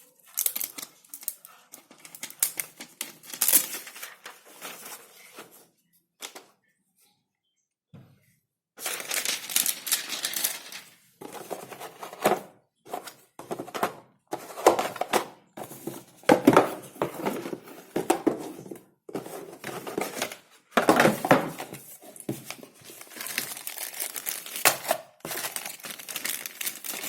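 Packaging crinkling and rustling as it is handled and opened, in irregular bursts of crackling and scraping, with a few seconds of near silence about six seconds in.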